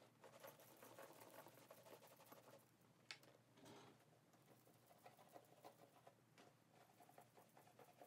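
Very faint rustling and light taps of a Dooney & Bourke Florentine leather tote being handled and lifted, with one sharp click about three seconds in.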